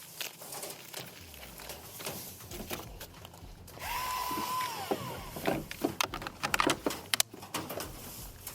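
Husqvarna 225i battery chainsaw given a short squeeze of the trigger after its chain has been sharpened: the motor and chain spin up to a steady whine, then wind down within about a second. Clicks and knocks of the saw being handled follow.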